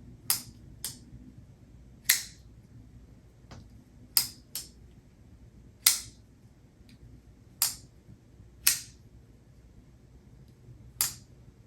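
Sharp metallic clicks, about nine of them at irregular intervals, some in quick pairs, from a folding pocket knife being opened and snapped shut.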